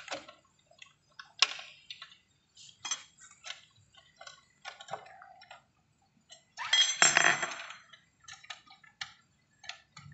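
Metal tools and parts clicking and clinking during work on an electric scooter's sprocket and chain, in scattered separate taps. About seven seconds in comes a louder metallic rattle that lasts about a second.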